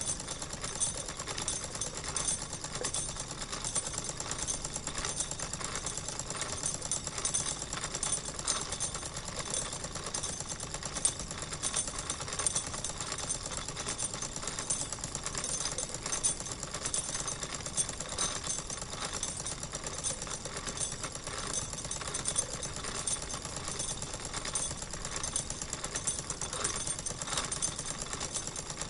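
Wilesco toy steam engine running steadily, purring with a rapid, even mechanical clatter.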